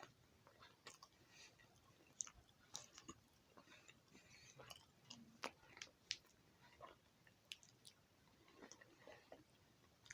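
Faint, scattered clicks and soft wet taps of kitchen utensils and food being handled, spoon against dish and filling being spread, at irregular intervals.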